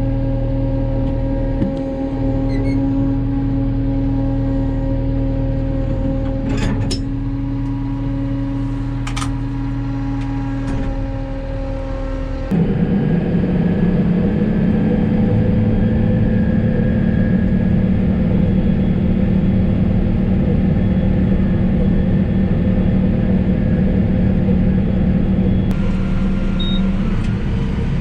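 Kubota's engine running steadily under way. About twelve seconds in, the sound changes abruptly to a louder, lower-pitched engine note that stays steady, with a few light clicks before the change.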